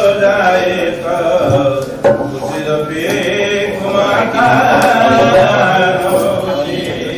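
Devotional chanting, voices intoning a hymn with long held notes. A few sharp strikes come through.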